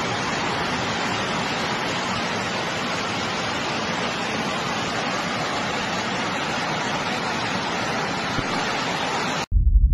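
Heavy hailstorm: a steady, even roar of hail and rain coming down, which cuts off suddenly near the end.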